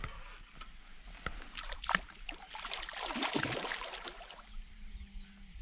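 Water splashing and swirling as a released common carp thrashes at the surface and dives away, with one sharper splash about two seconds in; the splashing dies down about four and a half seconds in.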